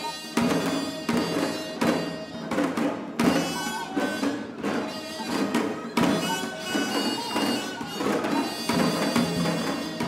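Korean traditional music for the janggu dance: strokes on the janggu hourglass drum in a lively rhythm, with strong accents every second or few, under a melody of held, wavering pitched notes.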